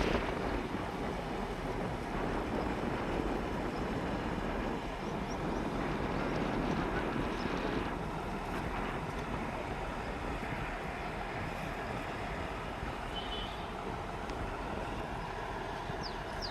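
Heavy demolition machinery running steadily, a continuous engine-like rumble and din.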